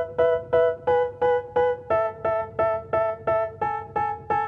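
Background music: a keyboard striking the same chord about three times a second, moving to a new chord about halfway through.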